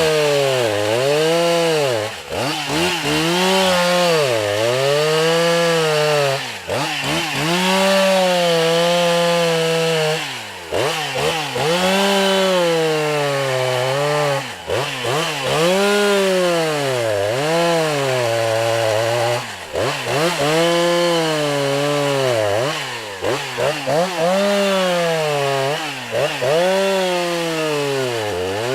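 Medium-sized professional chainsaw running at high revs, its pitch repeatedly sagging and recovering as it bites into wood, with short drops in loudness between cuts. These are plunge cuts into a large rhododendron stem, made to take the herbicide injection.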